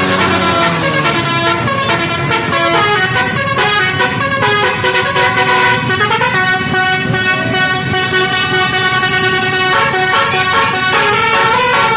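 Basuri-style 'telolet' multi-tone vehicle horn playing a tune of held notes that step from pitch to pitch, over a low rumble of engine noise.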